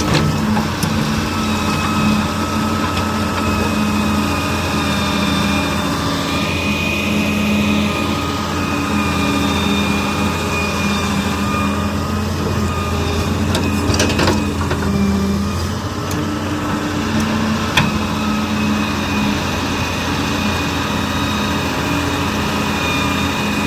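Diesel engines of an excavator and tractor running steadily while mud is loaded, a low hum with a thin high whine over it. Two short knocks come about two-thirds of the way through.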